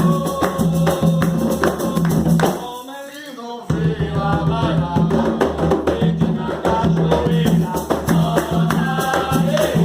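Umbanda ponto sung by a group over atabaque hand drums with a tambourine or shaker. The drums stop for about a second, about three seconds in, leaving the voices alone, then come back in.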